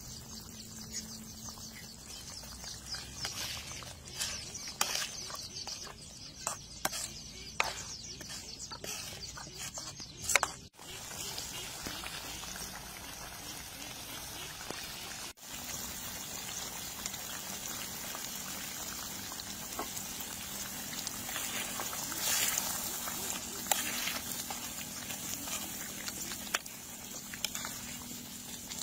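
Egg curry sauce simmering in a pan, bubbling steadily, with scattered sharp pops, most of them in the first ten seconds.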